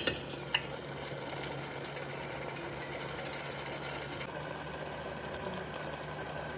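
Steady low hiss of chicken cooking in a pan on the stove, over a faint hum, with two sharp clicks near the start.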